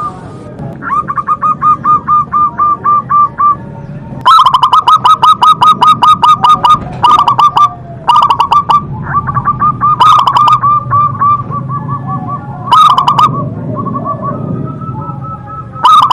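Zebra dove (local perkutut) cooing: runs of rapid, evenly repeated short coo notes, several series one after another, the loudest about a third of the way in.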